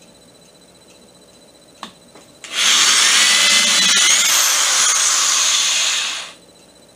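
A handheld power drill runs for about four seconds, working into a wooden frame. There is a single click just before it starts.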